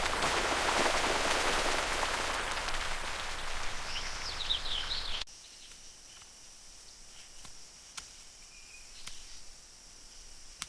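Tropical rainforest ambience: a dense hiss like heavy rain with a few bird chirps near its end, then an abrupt cut about five seconds in to quieter forest with a steady high insect drone and a few faint calls.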